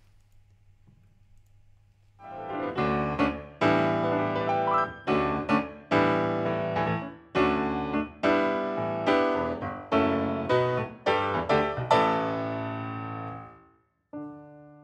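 Piano music for the show's closing titles, a run of struck notes starting about two seconds in. It ends on a chord that rings and fades away just before the end.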